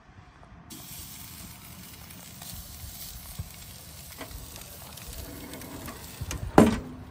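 Beef fillets sizzling on the grate of a hot charcoal grill, a steady hiss that starts suddenly about a second in. A few light clicks and one sharp metal knock near the end, the loudest sound.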